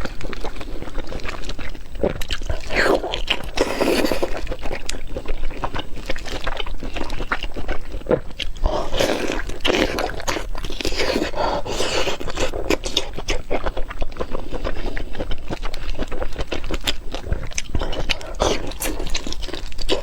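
A person eating close to the microphone: chewing and crunching, with many short clicks and scrapes.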